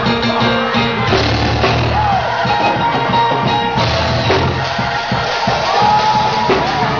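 Live gospel praise-break music played loud on keyboards with a drum kit: a pounding beat over held bass notes.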